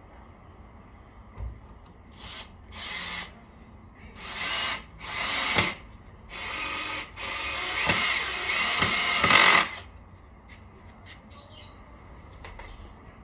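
Power drill running in a series of short bursts, about six in all, each from a fraction of a second to a couple of seconds long. The last and longest burst is the loudest and stops about ten seconds in.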